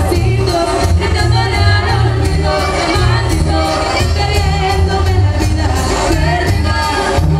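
Live Mexican band music: a woman singing into a microphone over clarinets and a steady bass-drum beat.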